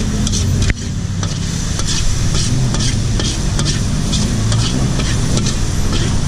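Metal ladle scraping and clinking against a wok as pad thai noodles are stir-fried, with a steady sizzle of frying. A steady low hum runs underneath.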